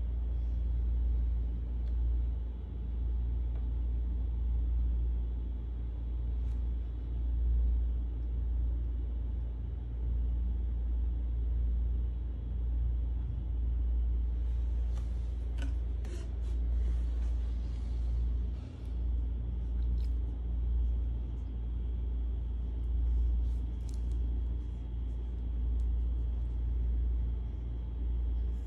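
Kitten purring close to the microphone: a low, steady rumble that swells and eases with its breathing. Brief scratchy rustles near the middle.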